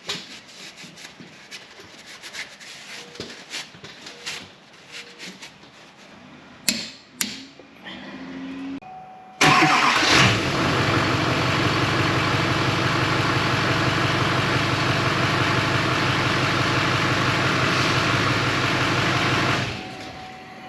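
Light clicks and clatter of parts being handled, then a power tool running steadily and loudly for about ten seconds before stopping, driving in the wheel hub's mounting bolts.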